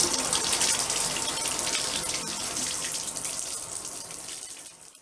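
Running shower water splashing into a bathtub, a steady hiss that fades out over the last couple of seconds.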